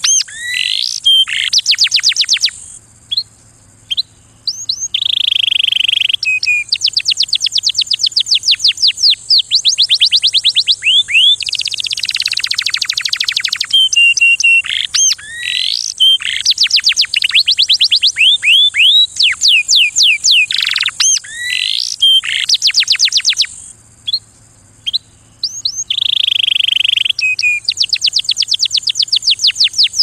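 Male domestic canary singing: long phrases of rapid trills and fast repeated rising notes, broken by two short pauses.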